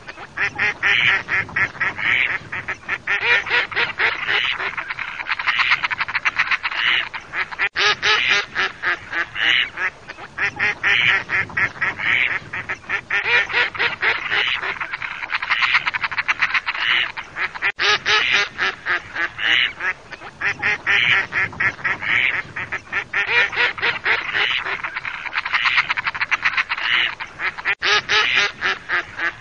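A flock of mallards quacking and chattering non-stop in rapid, overlapping calls. The same ten-second stretch of recording repeats, with an abrupt restart about every ten seconds.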